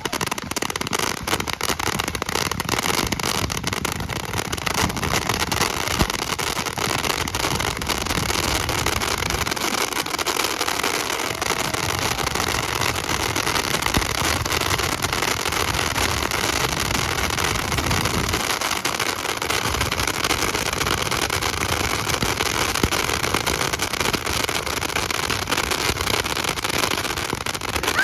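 Many Roman candles firing together: a dense, unbroken stream of rapid pops and crackles.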